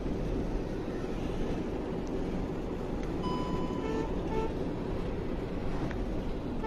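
Steady rumble of a moving car heard from inside its cabin: engine and tyre noise on the road. Faint brief tones come in from outside about three to four seconds in.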